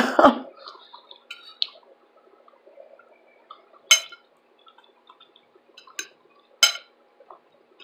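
A fork clinking and scraping against a dinner plate a few times, the sharpest clink about four seconds in and two more near the end, with faint chewing sounds between.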